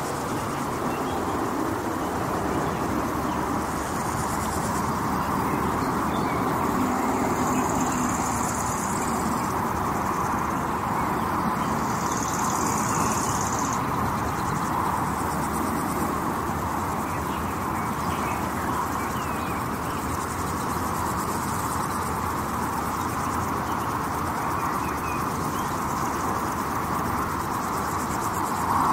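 Steady drone of highway traffic and tyre noise, with birds chirping faintly over it and a few short spells of high insect buzzing in the first half, typical of a summer field beside a road.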